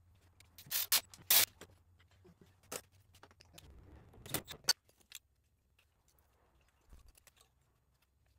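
Metal tools and parts clinking and rattling as they are handled: a string of sharp clicks, loudest about a second in, more around four and a half seconds, then only faint ticks.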